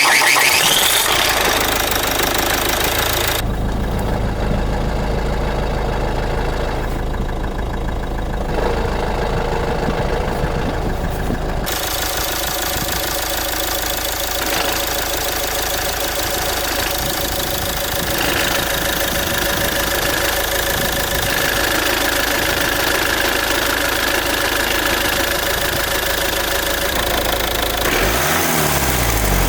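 Car engine running at idle with a knocking rattle from a worn dual mass flywheel.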